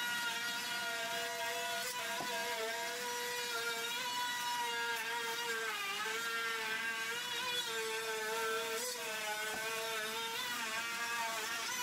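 An electric power tool's motor whining steadily, its pitch dipping and recovering several times as it bears into the work overhead.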